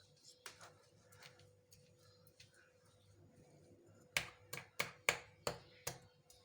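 Hard spoon knocking against a bowl while mashing egg and crushing its shell: a few light clicks, then about six sharp knocks in a row near the end.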